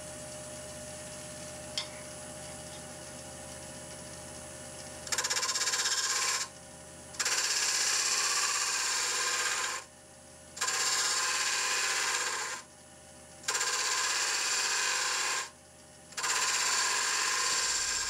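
Axminster AT1628VS wood lathe running with a steady hum; about five seconds in, a spindle gouge starts cutting the spinning spalted beech lid, in five cuts of one to three seconds each with short pauses between them.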